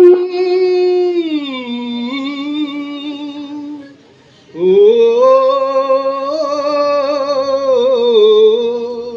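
A man singing a Hindi patriotic song, holding two long wordless notes. The first slides down in pitch about a second and a half in; after a short break the second rises, holds, and wavers in vibrato.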